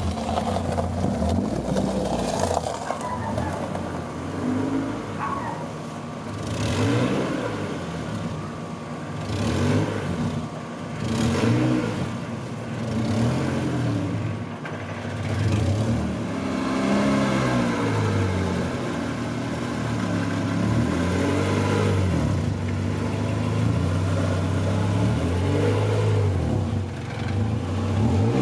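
Car engine revved again and again, its pitch rising and falling every second or two.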